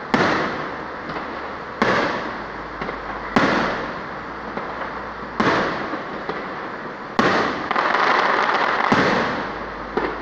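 Aerial firework shells bursting, six sharp booms about every one and a half to two seconds, each rolling away in a long echoing rumble.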